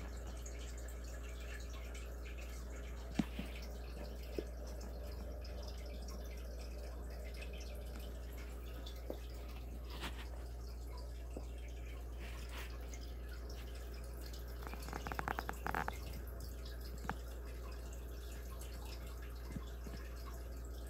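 Quiet room tone: a steady low hum with scattered faint clicks and taps, and a quick run of small clicks about fifteen seconds in.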